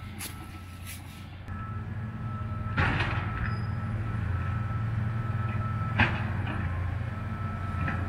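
Tracked excavator working: a steady low engine rumble that swells about a second and a half in, with a thin high whine running over it. Two sharp knocks stand out, about three and six seconds in.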